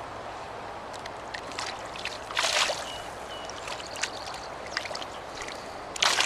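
Steady rush of flowing river water, with a few short splashes on top, the loudest about two and a half seconds in and again near the end.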